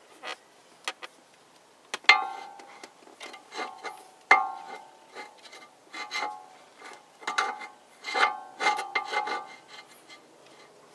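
Irregular metallic clinks and knocks, several with a brief ringing tone, mixed with scraping, as hand tools and steel steering parts are worked against each other during a tie rod end replacement.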